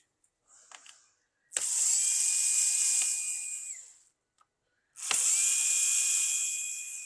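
Small electric screwdriver running twice, about two and a half seconds each, with a steady high whine, loosening the captive bottom-cover screws of a laptop.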